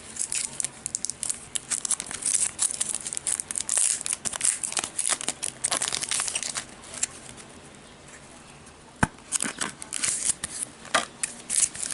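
Plastic and paper card packaging crinkling and tearing as it is handled and opened. The rustling pauses briefly, a sharp click comes about nine seconds in, and then the rustling starts again.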